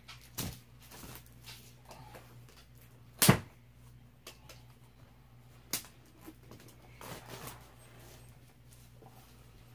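Cardboard kit box being handled and opened: a few sharp knocks and taps, the loudest a third of the way in, with light scraping and rustling of cardboard about seven seconds in.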